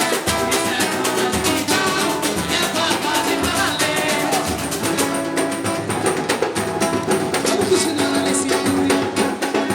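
Samba music: a band playing a quick beat on percussion with plucked strings. About halfway through the low drum pulses and the high percussion drop back, leaving the strings more to the fore.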